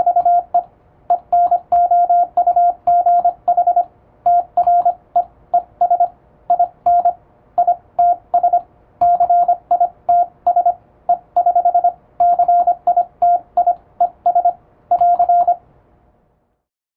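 Fast English Morse code sent with an electronic keyer: a single steady beep keyed on and off in crisp, evenly timed dots and dashes, grouped into letters and words. The sending stops shortly before the end.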